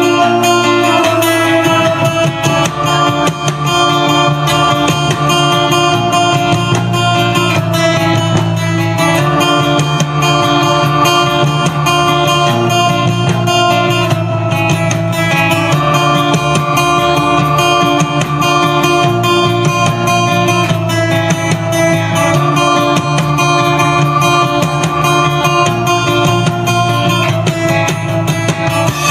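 A band playing an instrumental passage led by strummed guitar, with sustained chords over a steady bass line.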